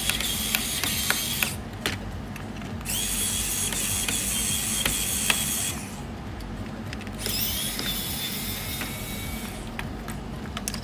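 Small electric screwdriver running in three short spells, backing out the screws that hold the laptop's CPU heatsink, with light clicks between spells. The last spell starts with a rising whine as the motor spins up.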